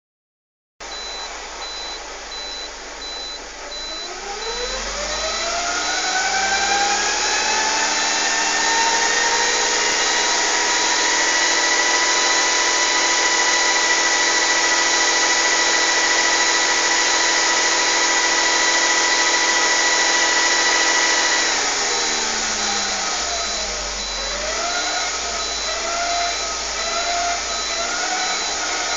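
2008 Scion xB with manual transmission driving in gear, making a whine with several pitches over steady road noise: the whine climbs as the car picks up speed, holds steady for a long stretch, falls away, then climbs again in wavering steps near the end. This is the annoying in-gear sound that shows from third gear up, its cause not yet known.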